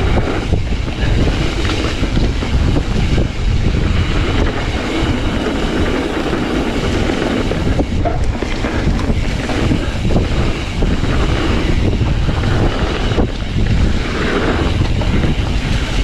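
Mountain bike riding fast down a dirt flow trail: wind rushing over the microphone, with the tyres rolling on dirt and the bike rattling over bumps.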